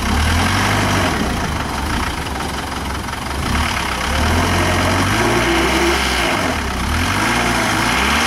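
A modified off-road 4x4's engine idling and being revved, its pitch stepping up and down several times.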